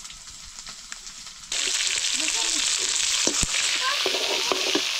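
Food going into a pan of hot oil: a loud sizzle starts suddenly about a second and a half in and keeps going, with one sharp knock of a utensil about two seconds later.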